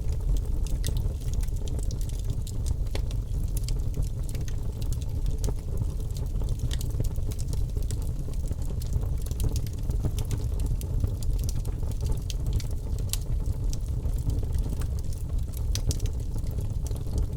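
Birch logs burning in a fireplace: a steady low rumble of flame with frequent small, irregular crackles and pops.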